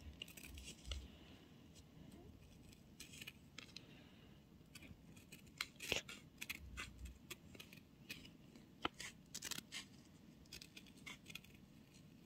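Scissors snipping around the edges of a tape-covered paper cutout: a scattering of quiet, short, irregular snips.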